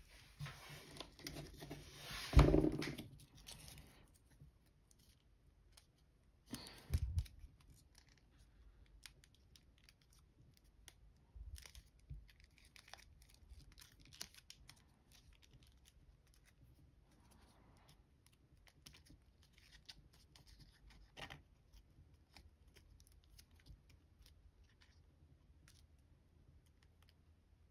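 Foil paper of an origami jet model being handled and pinched into shape: rustling and crinkling with small clicks. There is a dense stretch in the first few seconds with a loud bump about two and a half seconds in, another loud rustle around seven seconds, then only sparse faint crinkles.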